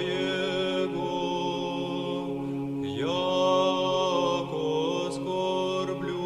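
Slow vocal chant: voices holding long notes over a steady low drone, with a voice sliding up into a new held note about three seconds in.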